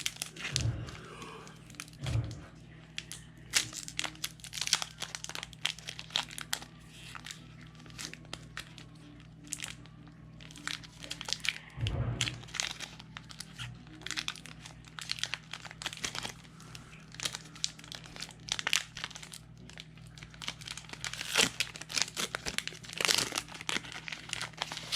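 Crinkling of a foil booster-pack wrapper and trading cards being handled, a run of short crackles with a few low thumps.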